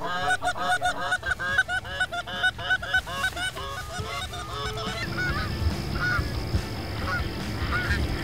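Canada geese honking: rapid, overlapping honks for about five seconds as the flock comes in, then thinning to scattered single honks.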